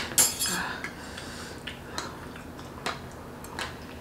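Forks and spoons clinking and scraping against plates while eating noodles: a short burst of clatter at the start, then scattered single clicks.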